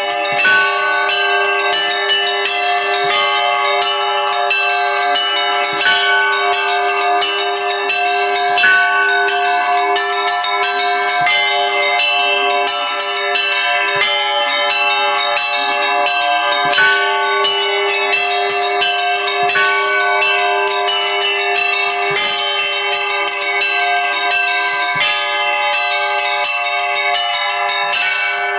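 Orthodox church bells rung by one bell ringer: a fast, continuous peal of strikes on several higher bells over one steadily sounding lower bell tone.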